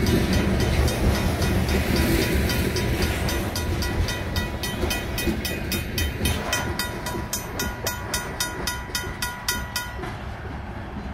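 Freight covered hopper cars rolling past on the rails with a low wheel rumble that fades as the train moves away. Over it a mechanical grade-crossing bell rings at about four strikes a second, then stops suddenly about ten seconds in once the train has cleared the crossing.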